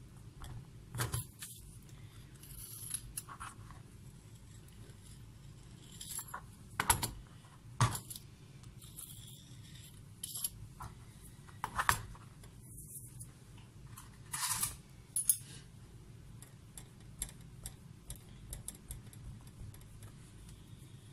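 Scattered sharp clicks and knocks of a metal fork and hands on a cutting board while a filled pierogi is folded and sealed. Near the end comes a run of light, quick taps as the fork tines press along the edge to crimp it.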